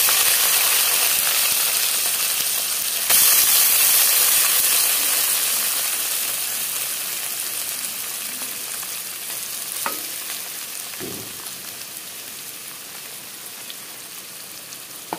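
Small marinated morali fish (mola carplet) sizzling as they fry in hot oil in a wok, stirred with a wooden spatula. The sizzle jumps louder about three seconds in, then slowly dies down, with a couple of short spatula knocks later on.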